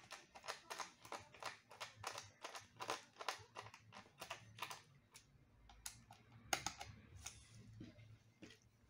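Light clicking and rustling of small plastic parts being handled and pressed into place inside an opened iMac, a quick run of clicks that thins out later, with one louder click.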